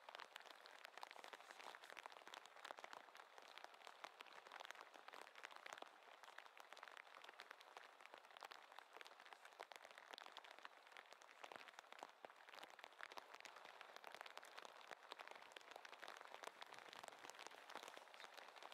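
Faint light rain pattering, a steady patter of many small drops.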